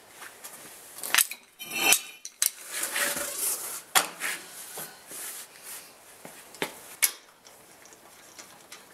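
Metal clinks and clanks, with a short rattle about two seconds in, as an alloy wheel is fitted back onto the hub studs and the lug nuts are threaded on by hand.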